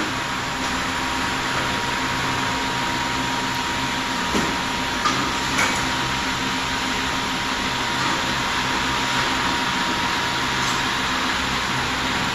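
Steady fan-like machine whir with a low hum and a thin steady high tone, broken by a few light knocks about four to six seconds in.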